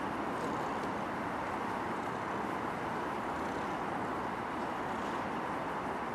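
Steady outdoor city background noise: an even hum of distant traffic.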